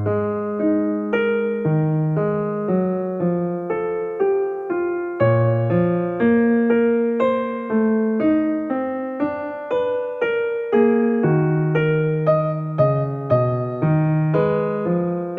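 Soft background piano music: a gentle melody of struck notes, each fading away, at about two notes a second.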